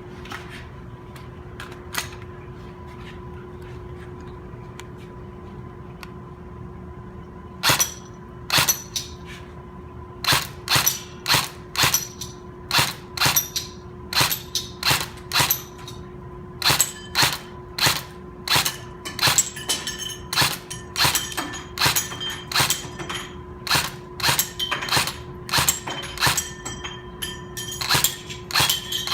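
Airsoft rifle firing single shots at a target. After a few quiet seconds with a couple of faint clicks, the sharp shots start and repeat irregularly, about one or two a second, sometimes in quick pairs.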